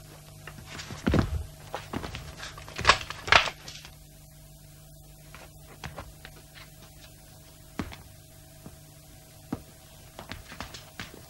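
Scattered thumps and knocks in a small room, loudest in a cluster between about one and four seconds in, then sparser single knocks. A steady low hum runs underneath.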